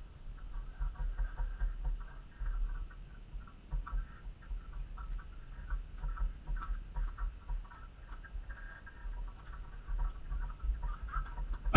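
Wind buffeting the microphone in gusts, making an uneven low rumble. Faint high chirping sounds and a few soft clicks can be heard under it.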